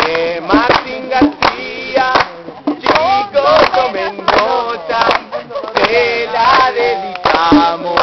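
Music: singing voices with sharp percussive clicks.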